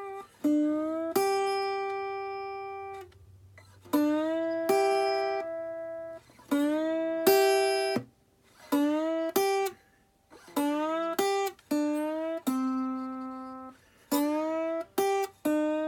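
Guitar played slide-style with a Swiss Army knife as the slide: short phrases of single notes, several gliding up into pitch, with brief pauses between phrases as the lick is repeated.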